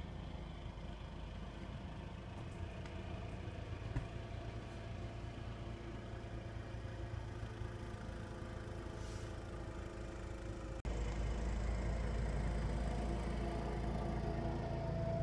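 Case Ingersoll 224 garden tractor's engine running steadily under load while its front-mounted snowblower throws snow, heard through a house window. After a brief break about eleven seconds in, the engine is louder.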